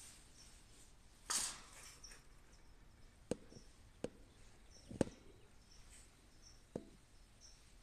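A cockatiel hisses once, a short breathy hiss about a second in, followed by four sharp clicks spread over the next few seconds. Faint, high, short chirps repeat in the background.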